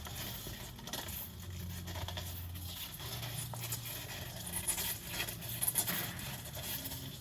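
Irregular light scraping and tapping noises, over a low steady hum.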